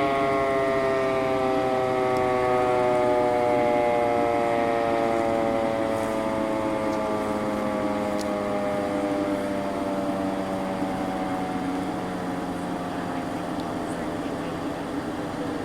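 Sentry 40V1T outdoor warning siren winding down: its tone, several stacked pitches together, falls slowly and steadily and grows gradually quieter as the rotor coasts down.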